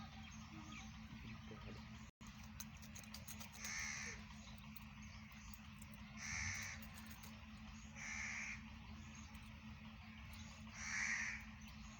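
A crow cawing four times, a single harsh caw every two to three seconds, over a steady low hum.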